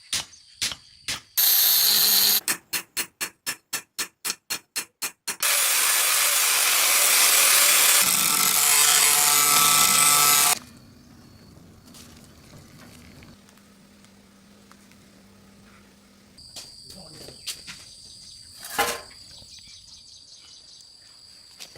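Forging hammer blows on steel, first a few separate strikes, then a quick even run of about four strikes a second. Then comes a loud rushing noise lasting about five seconds. After that it goes quiet, with a few faint knocks and a sharper one near the end.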